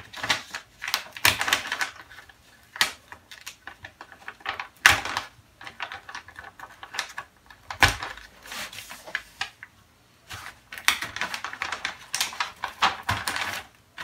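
Kraft paper and a paper pattern piece crinkling and rustling under the hands as they are smoothed down and pinned, with irregular sharp clicks and taps. A lull of about a second comes about two-thirds of the way through.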